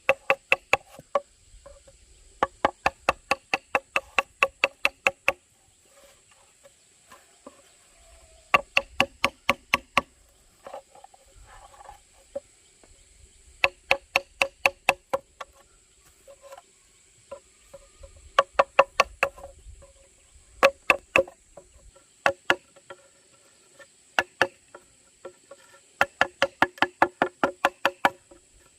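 Hollow bamboo being struck in quick runs of knocks, about four to five a second, each knock ringing with a clear hollow pitch. The runs last a few seconds, with short pauses between them.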